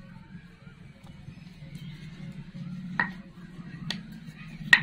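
Wooden rolling pin working small discs of dough on a round wooden board, with three sharp wood-on-wood knocks in the second half, the last the loudest, over a faint steady low hum.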